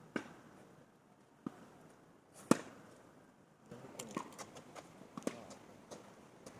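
Tennis ball struck by rackets and bouncing in a rally: three sharp knocks about a second apart, the loudest about two and a half seconds in. From about four seconds in comes a string of lighter, quicker taps and scuffs.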